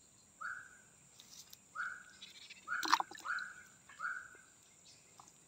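A bird gives four short calls, each a quick upward note that eases down again, spaced a second or so apart. A single sharp slap about three seconds in is the loudest sound.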